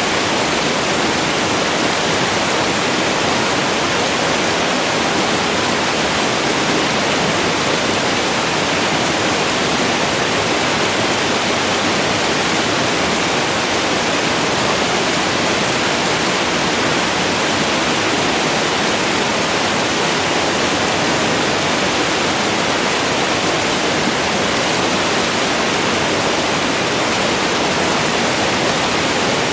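Waterfall: falling water rushing in a steady, unbroken stream of noise, mostly hiss with little deep rumble.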